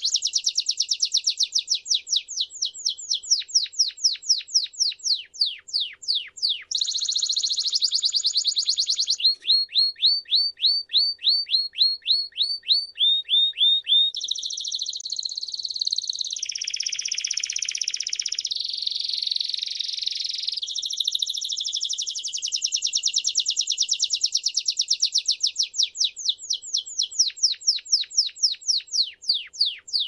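Timbrado canary singing a continuous, loud song of rapid trills: each tour repeats one quick downward-sweeping note many times, then switches to a new tour every few seconds, with a denser rolling, warbling stretch about halfway through.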